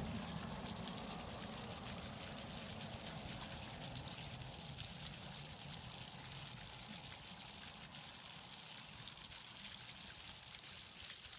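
Faint water sloshing and trickling as a dog wades through shallow water, a little louder in the first second and then slowly quieter.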